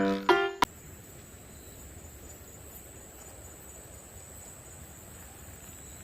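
Plucked music notes stop abruptly with a click just over half a second in. Then faint outdoor ambience with an insect trilling steadily at a high pitch.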